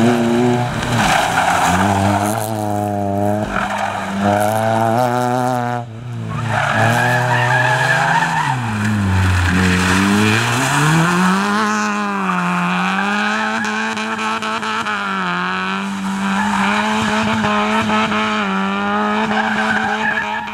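Small rally hatchbacks' engines revving hard up and down through a tight tarmac course, pitch climbing and dropping with each acceleration and lift, tyres squealing in the turns. The sound breaks off briefly about six seconds in and picks up again with another car.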